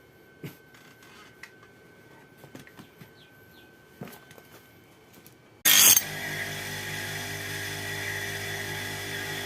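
Faint clicks and taps, then about five and a half seconds in a power tool starts with a sudden loud burst and runs on with a steady hum and whine.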